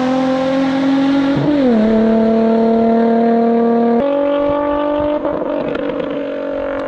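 Nissan 350Z's VQ35 V6 through an aftermarket Tomei exhaust, running at steady revs with a clean, held note: the good-sounding VQ exhaust note. The pitch dips once about a second and a half in, then jumps up abruptly about four seconds in and shifts again a second later.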